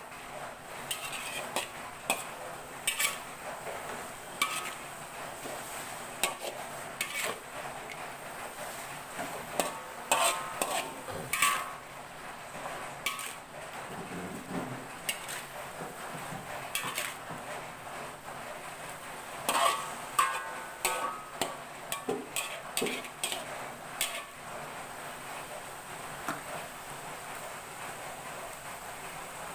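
A metal spatula scraping and clinking against a metal wok while vegetables are stir-fried. The strikes come irregularly, in busier flurries about a third and two thirds of the way through, and thin out near the end.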